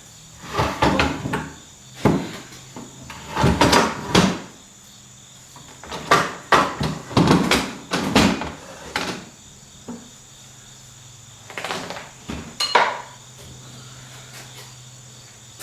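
A heavy steel front suspension member is being shifted and set down, with a series of metal clunks and scrapes that come in several bunches with short pauses between them.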